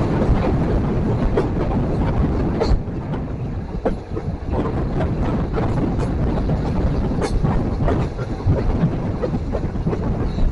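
Express train running on the track: a steady loud rumble of coaches and wheels, with irregular clicks and knocks as the wheels pass over the rails.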